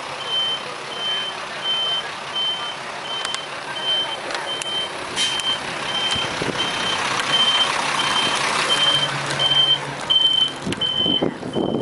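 Truck reversing alarm beeping steadily at about two beeps a second, over the running diesel engine of a Mitsubishi Fuso dump truck that grows louder in the second half.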